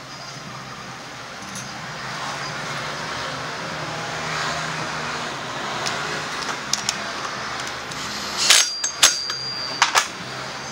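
Steady workshop background noise with a low hum, then a quick cluster of four or five sharp metallic clinks and knocks about eight to ten seconds in, one of them briefly ringing, as tools and metal parts are handled.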